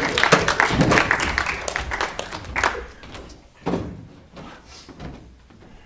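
Audience laughter and applause, which die away about three seconds in, followed by a few thuds.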